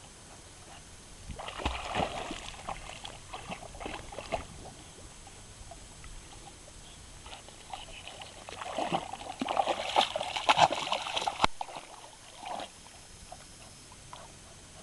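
A puppy paddling and splashing through water in two bouts of a few seconds each, the first starting about a second and a half in, the second, louder, starting about halfway through.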